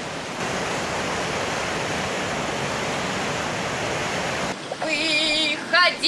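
Steady rush of water from river rapids and a waterfall. Near the end a woman's voice comes in, singing with a wavering pitch.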